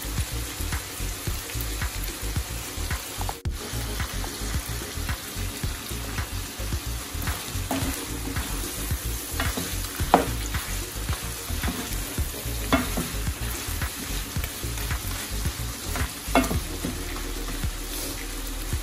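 Chicken pieces sizzling as they sauté in oil in a coated pot, stirred with a spatula, with scattered scrapes and knocks of the spatula against the pot.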